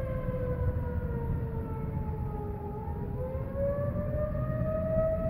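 Outdoor tornado warning siren wailing: one long tone that slowly falls in pitch and then rises again about halfway through. Wind noise rumbles on the microphone underneath.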